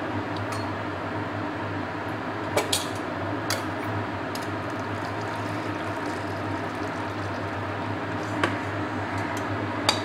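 Water being poured off from a steel karai of boiled mango pieces, with a few light knocks of the metal pan, over a steady low hum.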